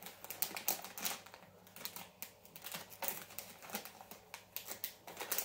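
Plastic bag of Polly candy crinkling as it is handled and pulled open, a quick, irregular run of crackles.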